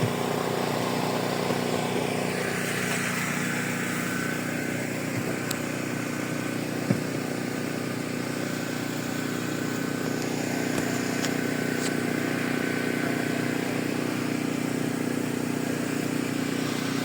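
Portable generator running steadily, an even engine hum with no change in speed, and one brief click about seven seconds in.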